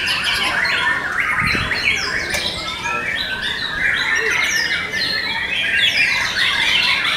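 Several white-rumped shamas singing over one another: a dense, unbroken stream of overlapping whistles, chirps and quick gliding notes.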